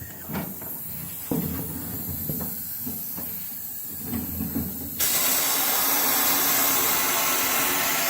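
A few knocks and handling noises as the air hose is moved. Then, about five seconds in, a homemade walnut-shell sandblaster cuts in with a loud, steady hiss of compressed air.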